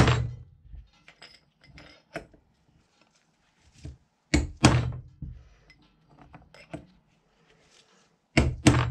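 Hammer striking a punch to knock a cartridge bearing out of a bicycle front hub shell: a sharp metallic knock at the start, then a pair of knocks about four seconds in and another pair near the end, with faint clinks between as the punch is moved to the opposite side of the bearing.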